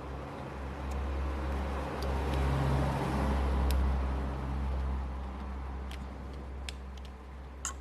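Low rumble of a passing road vehicle that swells about two seconds in and fades again by about five seconds, over a steady low hum. A few faint clicks are scattered through it.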